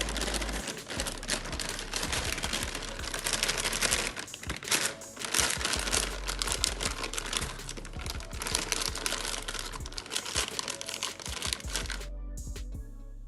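Background music with dense crinkling and rustling over it, which thins out near the end.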